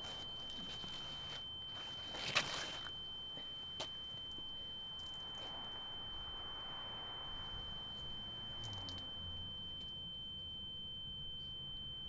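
A steady, high-pitched ringing tone held at one pitch throughout, like a sustained sine tone. A brief scuffing sound comes about two seconds in and a faint click soon after.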